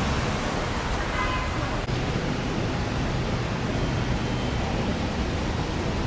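Steady road and traffic noise, a low rushing hum, with a faint brief higher tone about a second in.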